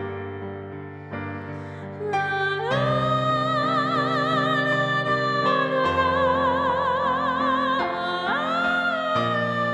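Piano chords struck three times, each left to ring, then a soprano voice comes in about three seconds in, singing long high notes with a wide vibrato over the piano accompaniment.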